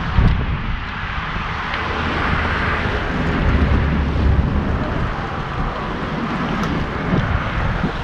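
Wind buffeting the microphone: an uneven low rumble over a steady rushing noise.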